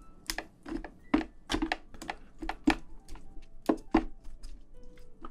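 A spoon pressing and mixing rice inside the shell of a soy-marinated raw crab (ganjang gejang), giving a quick, irregular run of short clicks and taps against the shell.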